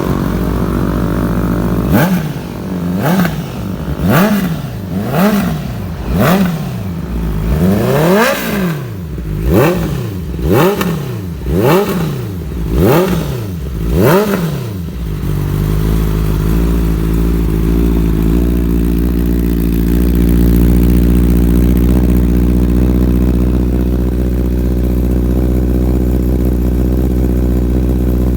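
Honda CB650R inline-four engine through an aftermarket stainless-steel slip-on exhaust with a carbon Excalibur GP muffler. It idles, is blipped about a dozen times in quick revs roughly a second apart, then settles back to a steady idle for the second half.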